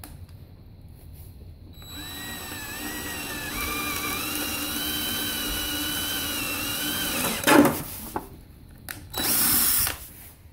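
DeWalt cordless drill with a 5/16-inch twist bit boring through a veneered wooden board: a steady motor whine that steps up in pitch partway through and stops about seven and a half seconds in. A sharp knock follows, then a brief loud rush of noise near the end.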